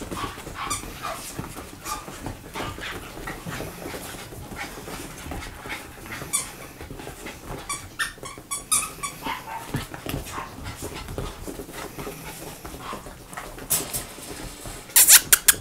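Three Shiba Inus and a Scottish terrier play-fighting, with short, scattered dog noises and scuffling throughout. A quick run of loud, sharp sounds comes near the end.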